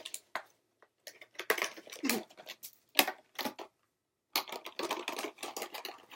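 Plastic and cardboard packaging crackling and clicking in irregular bursts as a boxed Rubik's Cube is opened, with a short pause partway through.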